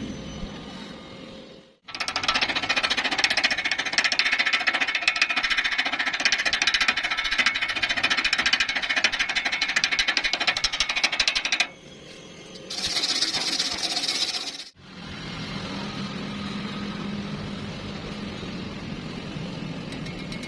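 Welding arc crackling with a fast, even sputter for about ten seconds, then cutting off sharply. After a short gap comes a brief hissing burst of about two seconds, then a steadier low hum.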